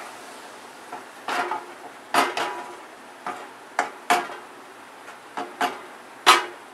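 A spoon knocking and scraping against a kadai while stirring boondi that has soaked up its sugar syrup: about ten separate, irregular clinks and knocks.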